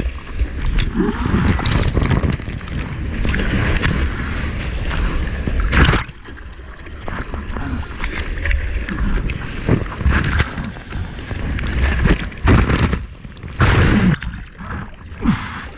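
Seawater splashing and sloshing around a surfer's action camera while paddling through whitewater, with irregular sharp splashes over a rumble of water buffeting the microphone.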